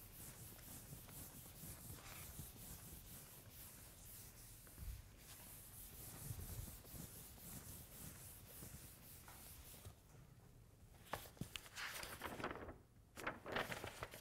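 Faint rubbing of a chalkboard being wiped clean, in repeated strokes. Near the end come sharper rustles and clicks, as of paper being handled.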